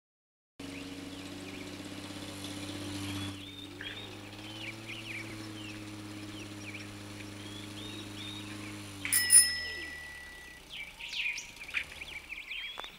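Birds chirping and singing over a steady hum of low held tones that fades away about nine seconds in. Around that point a bell rings once, bright and clear, the loudest sound here, and the birdsong carries on after it.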